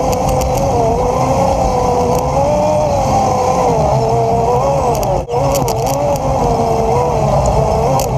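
Polaris RZR 800 side-by-side's twin-cylinder four-stroke engine running under way on a dirt trail, its pitch rising and falling as the throttle changes. The sound drops out for a moment about five seconds in.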